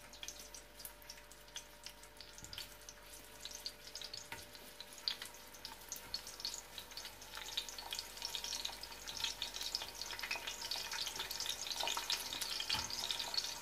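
Sliced raw onion rings dropped a few at a time into hot oil in a pot, sizzling and crackling. The sizzle grows louder and denser as more onion goes in, above all in the second half.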